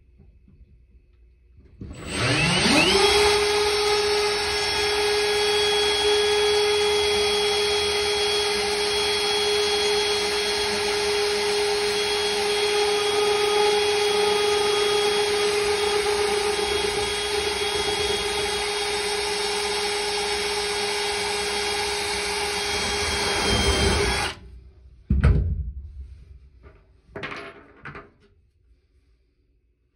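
Milwaukee Fuel brushless cordless drill spinning up quickly about two seconds in and running at a steady speed for about twenty-two seconds while drilling a small hole, then stopping abruptly. A few brief handling noises follow near the end.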